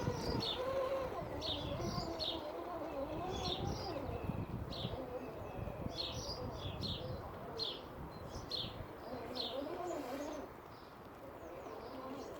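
An RC crawler's electric motor and drivetrain whining, rising and falling in pitch as it is throttled over an obstacle. Over it, a bird chirps in short repeated pairs.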